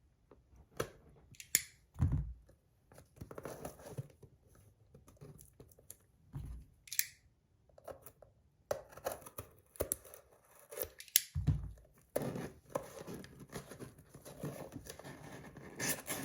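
A shipping box being opened by hand: irregular tearing and rustling of the packaging, with sharp clicks and three dull thumps as the box is handled.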